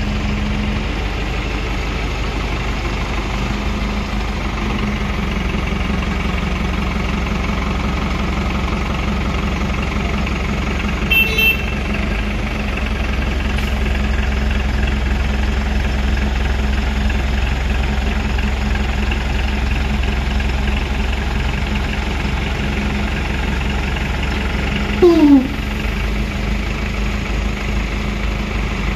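Diesel engine of an Escorts F15 pick-and-carry crane running steadily with a low hum while the crane holds a steel rafter. A brief high chirp comes about eleven seconds in, and a short falling squeal near the end.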